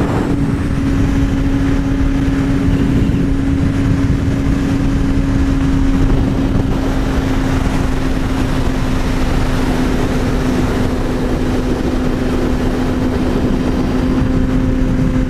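2009 Yamaha YZF-R6S inline-four with a Two Brothers full exhaust cruising at steady highway speed, its engine note holding one steady pitch after a slight drop at the start. Heavy wind rush on the microphone runs underneath.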